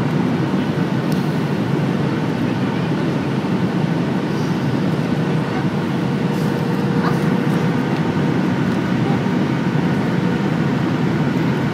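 Steady cabin noise inside a Boeing 737-800 on its landing approach: the CFM56 turbofan engines and the airflow make a constant low rumble with a faint, even hum above it.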